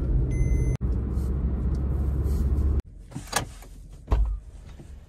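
Car cabin noise while driving, a steady low rumble of engine and tyres heard from inside the car, cutting off sharply almost three seconds in. Then the parked car is much quieter, with a sharp click and a low thump a second later.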